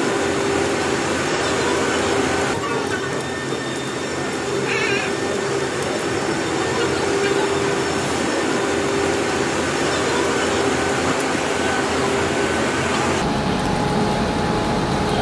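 An Indian Railways electric locomotive moving slowly through a station in the rain: a steady mechanical hum with hiss, and a short wavering squeal about five seconds in. The sound changes abruptly about thirteen seconds in.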